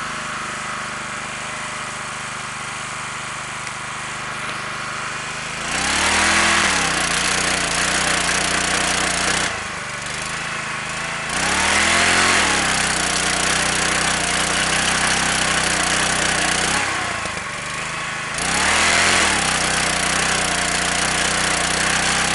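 Portable petrol generator running steadily. Three times, for several seconds each (about 6 s in, 11 s in and 19 s in), an electric motor powered from it is switched on: the generator's note dips and then recovers as it takes the load, and a higher whine from the motor joins in.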